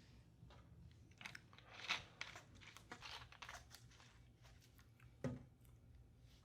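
Faint, irregular crunching and crinkling clicks for a few seconds, then a single low thump about five seconds in.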